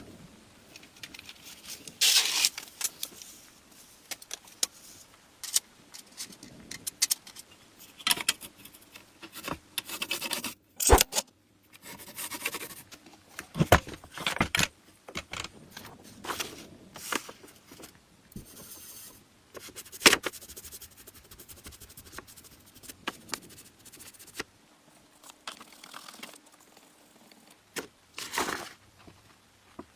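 Metal parts being handled and worked: irregular clinks, short scrapes and a few sharp knocks, with quiet gaps between them.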